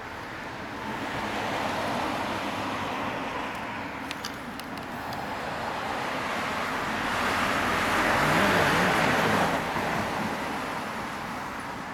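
Cars driving past on the road: two swells of tyre and engine noise, each rising and fading, the louder one around eight to nine seconds in.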